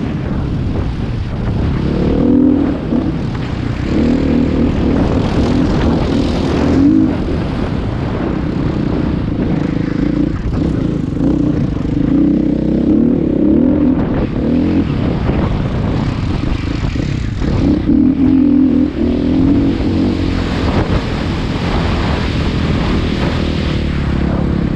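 Off-road vehicle engine running continuously, its note swelling and easing several times as the throttle is worked.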